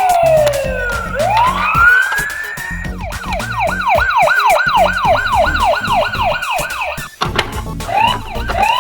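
Ambulance siren sound: a slow wail falling and then rising, followed by a fast yelp of about three sweeps a second. It breaks off briefly about seven seconds in, then short rising chirps lead into another wail near the end, over background music.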